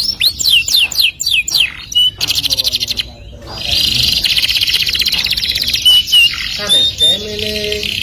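Domestic canary singing: a quick run of falling whistled notes, a short break about three seconds in, then a long, fast rolling trill with a few clear single notes near the end.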